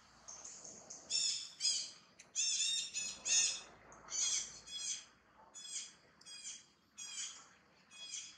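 A series of about a dozen short, high-pitched calls from an unseen animal, roughly two a second, loudest in the first few seconds and fading toward the end.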